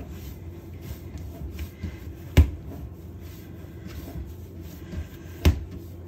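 Hands kneading a stiff, elastic dough, with two dull thumps about three seconds apart as the dough is pressed or slapped down against the work surface, and soft rubbing and handling sounds between them.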